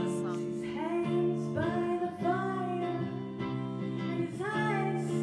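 A woman singing, with gliding, held notes, over sustained electric guitar notes.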